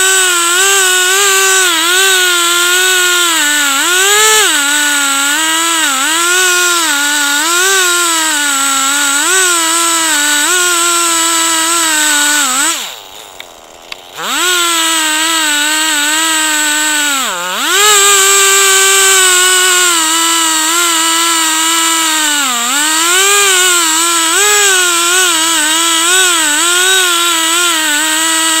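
Two-stroke chainsaw ripping a log lengthwise on a chainsaw mill, running at full throttle with its pitch sagging and recovering as the chain bogs in the cut. A little before halfway it drops to idle for a second or so, then revs back up. It dips sharply once more a few seconds later.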